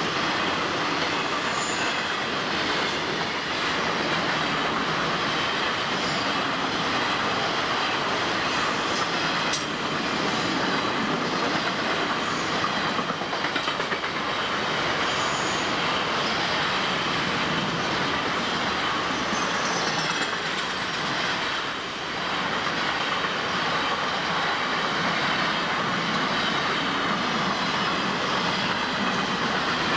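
Florida East Coast Railway freight train's cars rolling past in a steady rumble of steel wheels on rail, with faint clicks and a few short, high wheel squeals now and then.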